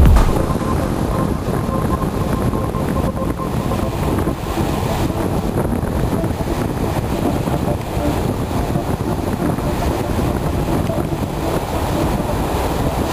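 Surf washing onto a sandy beach, with wind rumbling steadily on the microphone.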